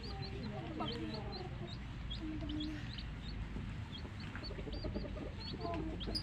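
A brood of baby chicks peeping: many short, high cheeps, several a second, overlapping, with lower clucking calls among them.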